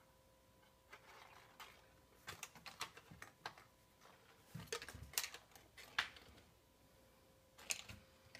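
Faint, scattered clicks and taps in short clusters, with a couple of soft thumps about halfway through.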